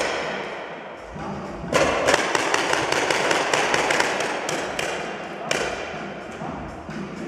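Paintball markers firing: a rapid string of sharp shots, several a second, from about two seconds in, echoing in a large indoor hall.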